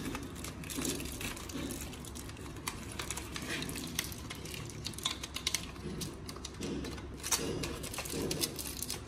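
Aluminium foil crinkling in irregular little crackles as it is folded and pressed by hand around a glass to form a mould.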